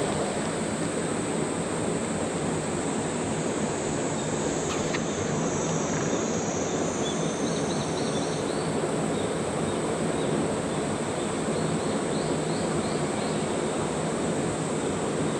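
Steady rushing of river water flowing over rocks and shallows. Twice, a faint run of about five short high chirps sounds over it.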